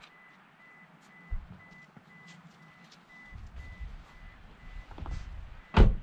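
Pickup truck's door-open warning chime: a steady high beep repeating several times a second, which stops about five seconds in. A loud thump comes near the end.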